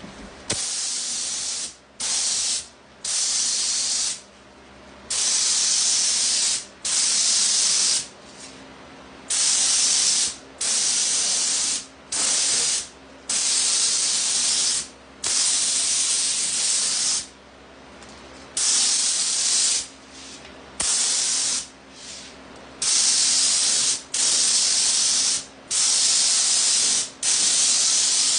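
HVLP spray gun hissing in repeated bursts of one to two seconds as the trigger is pulled and released, laying satin lacquer onto cabinet panels, with short quieter gaps between passes.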